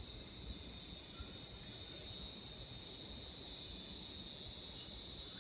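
Chorus of cicadas giving a steady, unbroken high-pitched drone.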